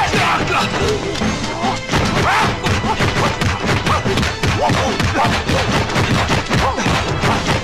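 Rapid dubbed punch and kick impact effects from a martial-arts film fight, several hits a second, over the film's action music.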